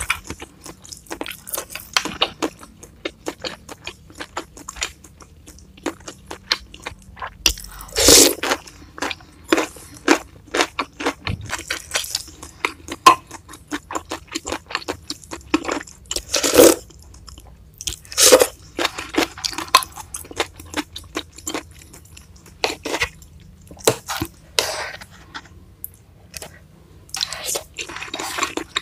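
Close-miked eating: chewing and crunching of food, many short wet clicks in quick, uneven succession, with a few louder, longer noisy bursts spread through.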